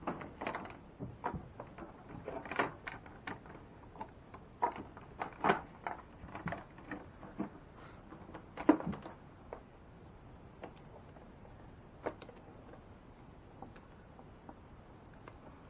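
Irregular rustling, scraping and knocking as an old power wire, taped to a pull rope, is drawn through a kayak's hull. The handling sounds come thick for about nine seconds, with one sharp knock a bit past halfway, then thin out to a few light ticks.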